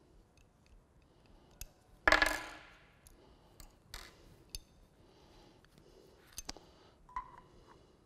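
Small metal suspension-bracket parts and a hex key clinking as the bracket is taken apart: one loud ringing metal clink about two seconds in, then a few lighter clicks and taps.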